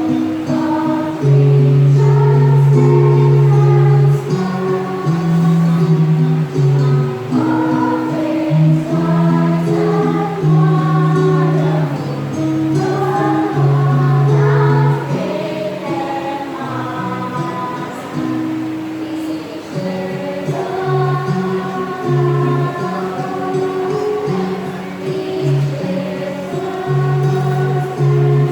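Choir singing a sacred song over instrumental accompaniment, with held low bass notes that change every second or so under the voices.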